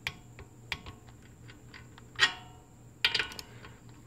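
Metallic clicks and clinks from a torque wrench and socket on the cylinder head bolts of a Briggs & Stratton flathead engine, as the bolts are torqued in pattern to 82 inch-pounds. A few light ticks come first, then one loud ringing clink about two seconds in and a short rattle of clicks about a second later.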